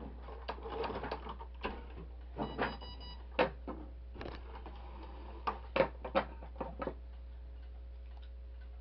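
Scattered clicks, knocks and rustles as a towel and lace are pulled and shifted at a stopped sewing machine. A faint steady hum sets in near the end.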